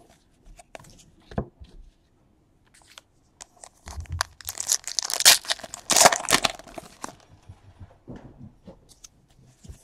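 A trading card pack's wrapper being torn open and crinkled, a crackling burst lasting about three seconds starting a few seconds in, with a few small clicks from card handling around it.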